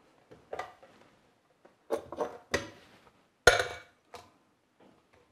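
A glass bowl clinking on a glass kitchen-scale platform as cayenne chilies are dropped into it: a series of light knocks and clinks, the loudest about three and a half seconds in.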